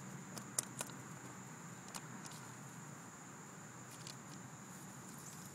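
Hands handling a small plastic baggie of ashes and pressing it into a hole in grass and dirt: a few soft clicks and crinkles, the sharpest about half a second and just under a second in, and again around two and four seconds. Under it runs a steady faint high-pitched whine.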